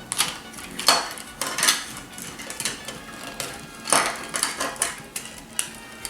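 Hard plastic toy parts of a vintage Transformers Jetfire figure clicking and clattering as pieces are handled and fitted, with a few sharper knocks, the loudest about a second in and about four seconds in.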